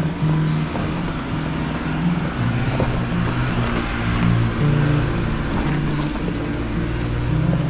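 A Jeep Rubicon driving off-road, with a steady rumble of engine and tyre noise, under background music whose low notes change every half second or so.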